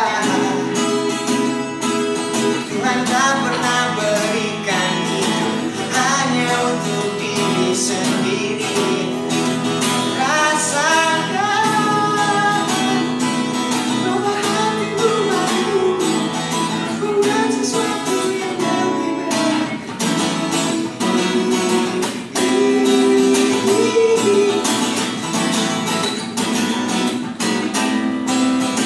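Solo acoustic guitar played with plucked, fingerpicked notes, with a male voice singing over it in places, most clearly about a third of the way in.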